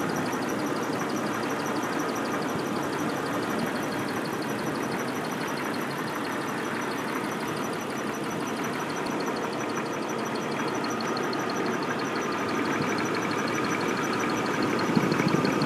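1994 Jeep Cherokee engine running steadily, with a bad accessory-belt pulley giving a fast, even, high-pitched ticking chirp over the engine. A thin steady whine becomes clearer about two-thirds of the way through.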